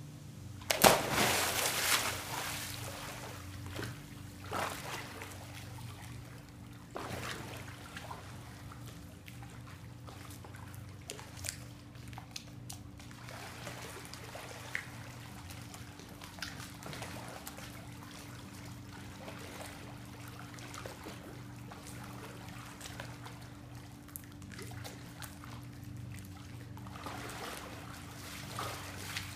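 A swimmer entering a backyard pool with a loud splash about a second in, then a few smaller splashes. After that comes the gentle sloshing and lapping of pool water as he swims underwater, with splashing picking up again near the end as he breaks the surface.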